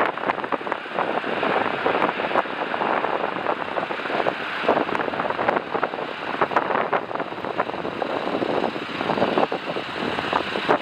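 Steady roar of jet aircraft engines with strong wind buffeting the microphone in short irregular gusts.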